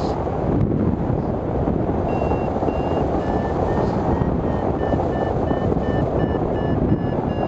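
Wind rushing over the microphone of a hang glider in flight. From about two seconds in, a variometer beeps in a quick run of short beeps, roughly three a second, with the pitch stepping slightly up and down: the instrument's signal that the glider is climbing in lift.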